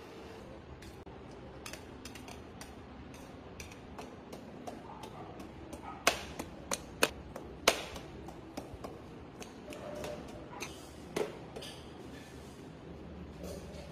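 A kitchen knife and steel utensils clicking and knocking against a steel tray as roasted papaya pieces are cut and scooped up. The knocks come irregularly, loudest in a quick run about six to eight seconds in and once more about eleven seconds in.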